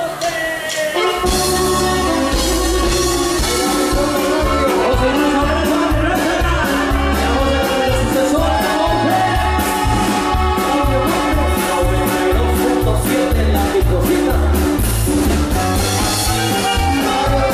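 A live band plays regional Mexican music with a singer, coming in about a second in with a strong, steady bass beat.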